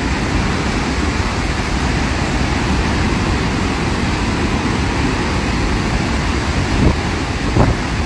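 Steady, deep rushing noise of Victoria Falls, the Zambezi's water pouring into the gorge, with a couple of short thumps near the end.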